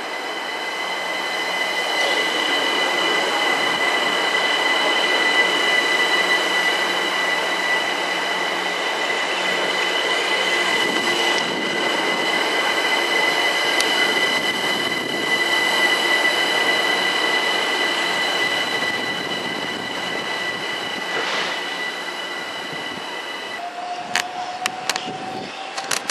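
A London Overground Class 378 Electrostar electric train passing slowly and close, with steady running noise and a steady high-pitched squeal. The squeal cuts off about 23 seconds in. A slowly rising whine and a few sharp clicks follow near the end.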